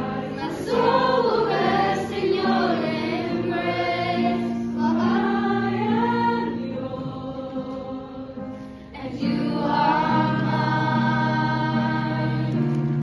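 Choir singing over held accompaniment notes, with a brief lull between phrases about nine seconds in.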